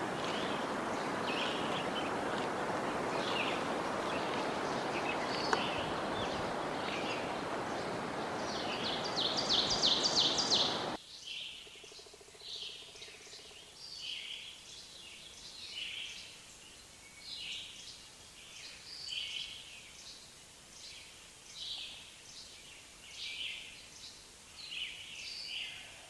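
Wild birds chirping over a steady rushing noise, with a quick run of chirps shortly before the noise cuts off suddenly about eleven seconds in. After that, short bird calls repeat about every second and a half over a quiet background.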